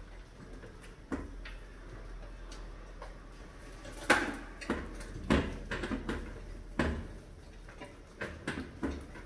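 Irregular sharp knocks and clatters of mice scrambling over aluminium cans on a glass-tank mouse trap, the loudest about four seconds in.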